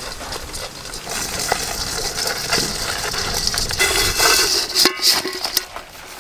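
Live crabs scraping and clattering against an aluminium bowl and rustling onto a banana leaf as they are tipped out, loudest about four to five seconds in, with a brief squeak near five seconds.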